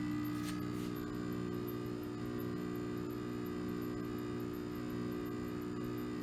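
Riehle torsion testing machine humming steadily as it unloads under the turned loading dial, with a higher steady whine that comes in about half a second in.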